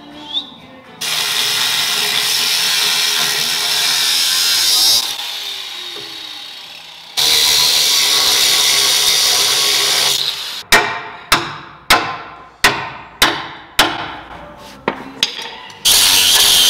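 Angle grinder cutting into a steel truck frame, in long steady runs with its whine falling off between them. Between the runs comes a quick series of about eight sharp hits, each dying away, before the grinding starts again.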